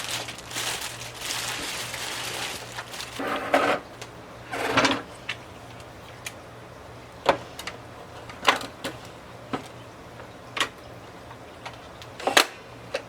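Rustling of packing for about two seconds, then scattered sharp clicks and knocks as pieces of a Brother SE1900 embroidery machine and its packing are handled and taken off.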